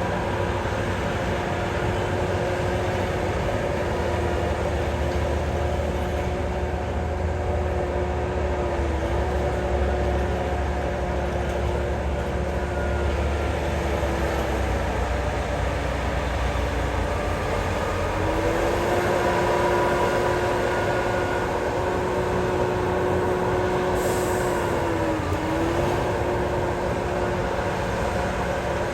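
Heavy diesel engine of earthmoving machinery running steadily, its pitch dipping briefly three times. A short hiss comes near the end.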